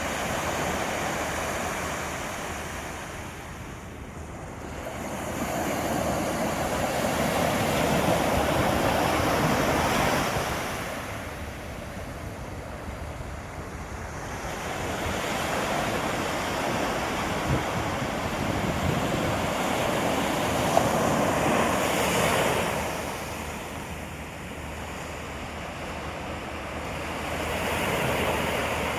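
Sea waves breaking and washing up a sandy beach, the surf swelling and falling back about every ten seconds.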